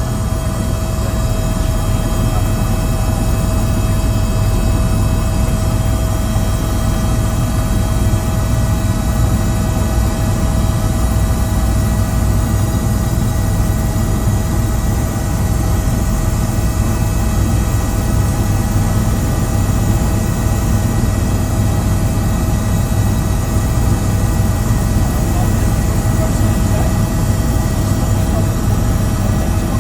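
Steady, loud drone of an aircraft in flight: a deep engine rumble with a few constant whining tones above it, unchanging throughout.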